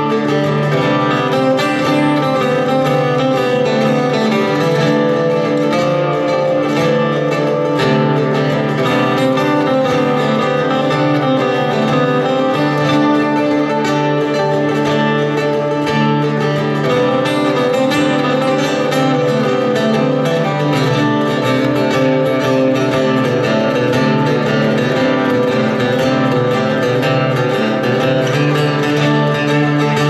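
Acoustic guitar played solo, a continuous instrumental passage with no singing.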